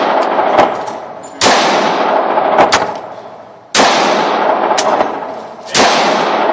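Glock 19 9mm pistol fired three times, about two seconds apart, each shot followed by a long echoing decay. A few quieter sharp cracks sound in between.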